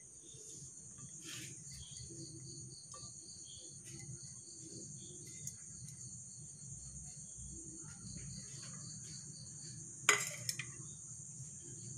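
Crickets chirping steadily in the background, a continuous high-pitched trill, with a second, pulsing insect call running through most of it. A single sharp clink about ten seconds in.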